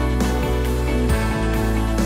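Background music with sustained chords over a steady bass line; the bass note changes about a second in.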